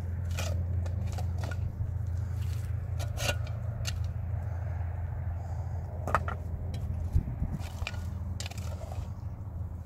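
Stones and mud being handled by hand: scattered knocks and scrapes, with a sharper knock a little after three seconds in and others around six and seven seconds, over a steady low rumble.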